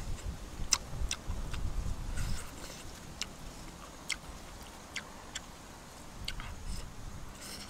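A person eating and chewing: about a dozen sharp, wet mouth clicks and smacks at irregular intervals, with low rumbling in the first two and a half seconds.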